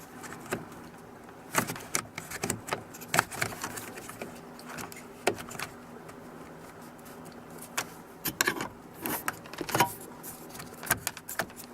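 Irregular plastic clicks, taps and light rattles as a Jeep Wrangler JK's turn signal switch and its wiring are handled and slid back into place in the steering column. A few clicks come in quick clusters, about eight seconds in and again near the end, over a faint steady hum.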